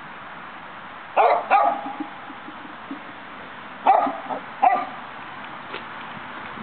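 Dog barking in two pairs of short, sharp barks, about a second in and again about four seconds in.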